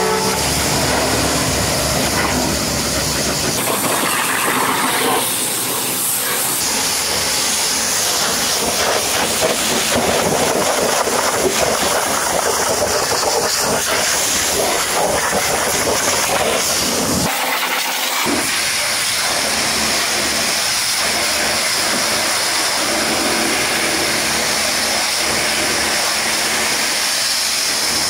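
High-pressure washer jet hissing steadily as it blasts water against a truck's steel bumper, fuel tank and tyre. The spray's tone changes a few times as it moves between surfaces.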